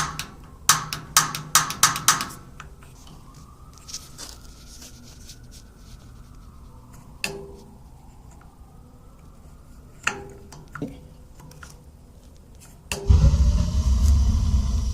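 Sharp clicks of a gas water heater's pilot igniter: a quick run of about six, then single clicks a few seconds apart. Nearly two seconds before the end, a loud low rumbling noise starts and keeps going.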